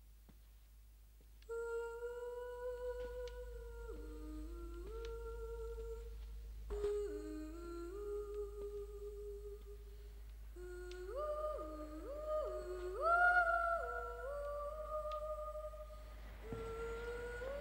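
Film score: a slow melody of long held notes in two or three parts, each note sliding smoothly to the next, beginning about a second and a half in. A single click sounds about seven seconds in.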